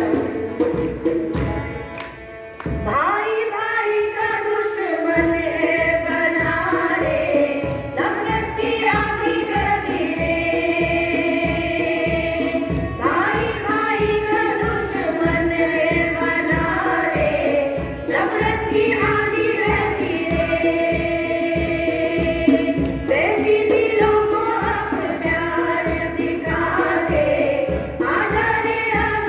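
A group of women singing a Hindi bhajan together, with a steady drum beat underneath. The singing drops away briefly about two seconds in, then picks up again.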